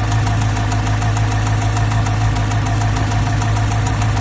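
Chevrolet Corvette C8 Z06's LT6 flat-plane-crank V8 idling steadily, with a rapid, regular mechanical ticking over the engine hum. This is the excessive valvetrain tick that GM's service bulletin puts down to improperly torqued camshaft caps.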